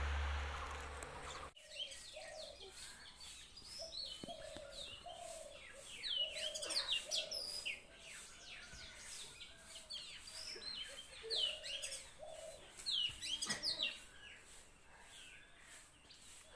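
Several birds calling in a morning chorus: many quick, sweeping high chirps over a run of short, lower repeated notes. Before that, a noisy stretch with a low hum is the loudest part and cuts off suddenly about a second and a half in.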